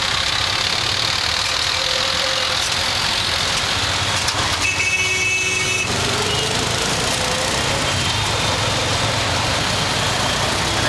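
Busy city street traffic heard from a rickshaw: engines running and road noise, with a vehicle horn sounding for about a second near the middle.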